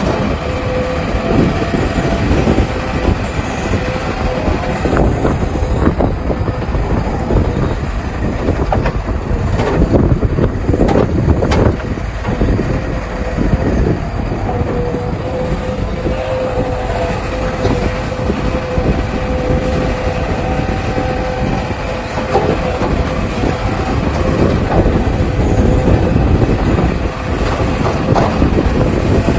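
Excavator at work: its diesel engine running under load with a steady whine, over many irregular knocks and scrapes from the bucket and tracks, a little louder about ten seconds in.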